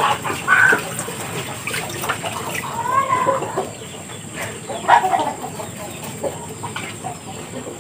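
Poultry clucking: short calls scattered through, the loudest about half a second in and again around five seconds in.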